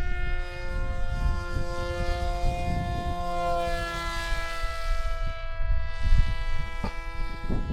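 Electric motor and propeller of a foam-board RC jet model whining in flight, a steady pitched drone whose pitch slides slowly as the plane moves, with wind buffeting the microphone.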